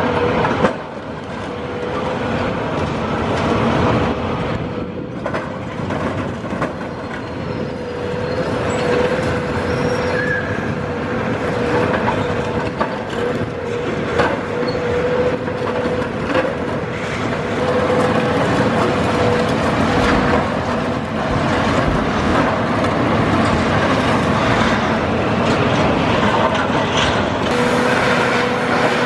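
High-reach demolition excavators working: heavy diesel engines and hydraulics running under load while the demolition attachment breaks up a concrete building and chunks of concrete crunch and tumble onto the rubble. A steady high whine runs through most of it.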